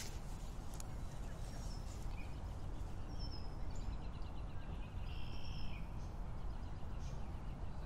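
Outdoor garden ambience: a steady low rumble with small birds chirping on and off, several short calls and a brief trill a little past the middle.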